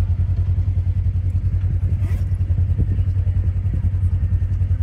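Side-by-side UTV engine running steadily, a low pulsing drone.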